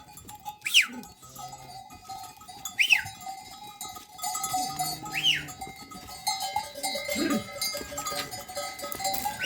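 Bells on a flock of sheep and goats clinking and ringing steadily, with short high chirps about every two seconds and one low bleat about seven seconds in.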